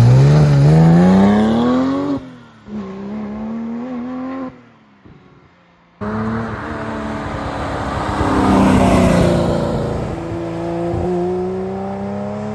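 A Porsche sports car's engine accelerating hard, its pitch climbing for about two seconds before dropping at a gear change and fading away. After a sudden cut, another Porsche sweeps past, its engine note changing as it goes by, then settles into a steady tone near the end.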